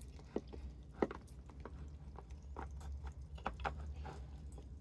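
A few faint, scattered light taps and clicks from handling of the plastic planter pockets and plants, over a low steady rumble.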